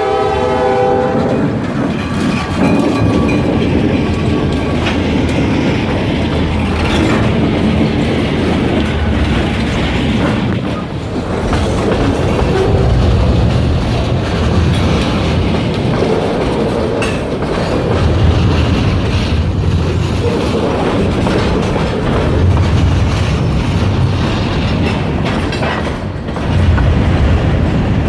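Train horn on an SD40 diesel locomotive, cutting off about a second in. Then the steady rumble and clatter of a freight train rolling past on the rails.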